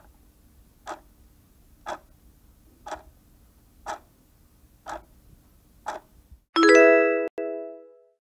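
Countdown-timer sound effect: a clock ticks once a second, seven times, then a bright chime rings and fades, marking that the answer time is up.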